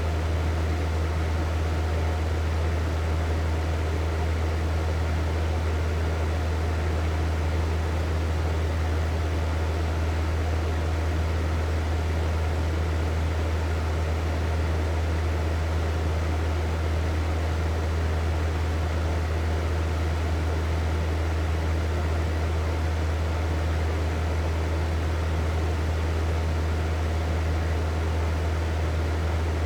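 Hair dryer running steadily: a constant rush of air over a strong low hum, with no change in speed or level.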